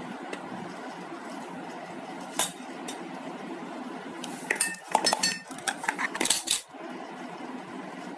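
Miniature metal toy pots, pans and plates clinking and clattering as they are picked up and set down among each other: a single clink about two seconds in, then a quick run of metallic clinks with short ringing in the middle.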